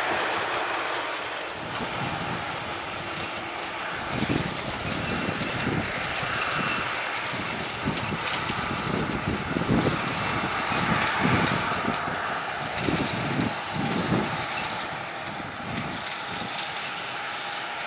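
Boeing 737-800's CFM56-7B jet engines running at low power with a steady rushing noise as the airliner rolls out along the runway after landing. Irregular low thumps come and go from about four seconds in.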